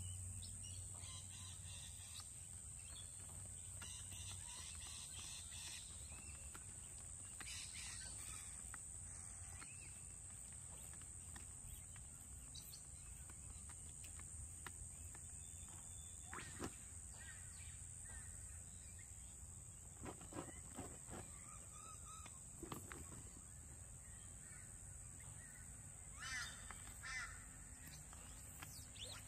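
Outdoor ambience: birds call several times, in short groups about halfway through and again near the end, over a faint steady high hiss.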